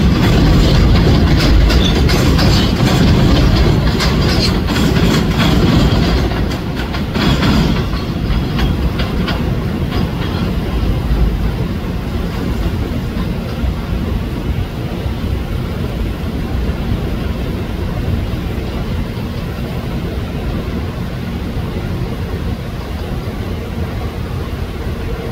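New York City subway train rolling over elevated track switches. The wheels clickety-clack over the rail joints and frogs, loudest for the first several seconds, then ease into a softer, steady rumble.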